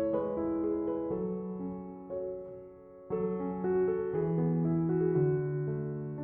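Background music: soft piano playing slow chords, with a brief dip in level about three seconds in before a new chord enters.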